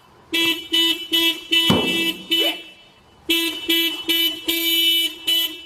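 A 1999 Toyota Corolla's alarm sounding the car horn in quick repeated honks, about three a second. After a short pause, longer honks follow near the end.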